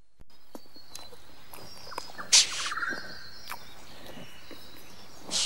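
Outdoor ambience with an animal call about two seconds in: a short harsh burst followed by a rapid rattling trill. A second harsh burst comes near the end.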